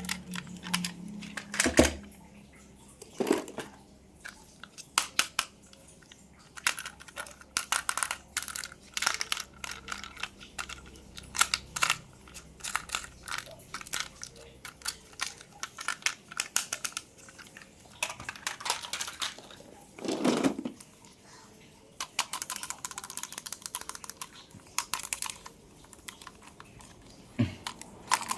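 Toy packaging being handled and opened: crinkling plastic and cardboard with many small clicks and taps, and a few heavier knocks.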